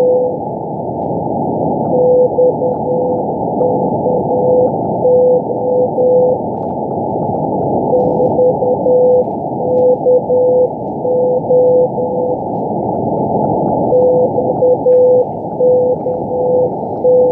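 Shortwave Morse code (CW) beacon on 5198 kHz, heard through a receiver: a single steady tone keyed in dots and dashes, sending the three-letter identifier XKO in groups that repeat about every six seconds. Constant hiss of band noise lies under it.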